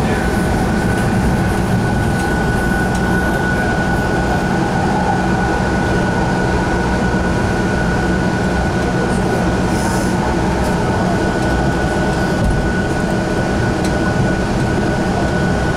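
Sound Transit Link light rail car running between stations, heard from inside the car: a steady rumble with a steady high-pitched tone held throughout.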